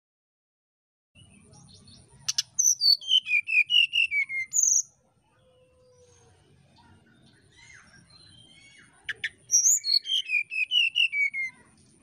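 Brown-chested jungle flycatcher singing its fluty song: two phrases, each a quick run of clear notes falling in pitch. The first comes about two and a half seconds in and the second near the end, each with a short sharp click just before it.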